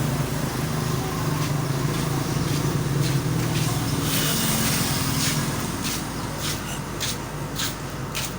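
Heavy vehicle engine running with a steady low rumble that fades away after about five seconds. A series of short clicks follows near the end.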